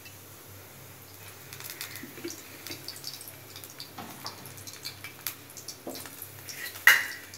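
Cooking oil heating in a small steel kadai on a gas burner, with faint, irregular crackles and pops as it warms toward tempering heat. A single sharp metal clink near the end is the loudest sound.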